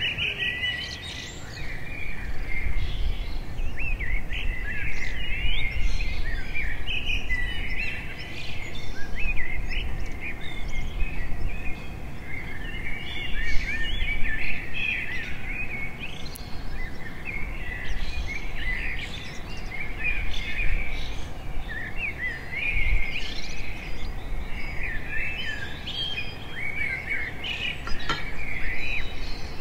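Several birds chirping and singing in a continuous chorus of quick trills and short rising and falling calls, over a low steady rumble.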